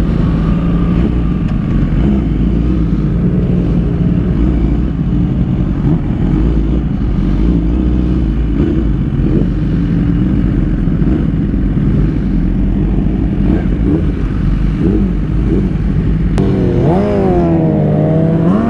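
Motorcycle engine running while under way, under a heavy low rumble. Near the end the revs rise and fall a few times.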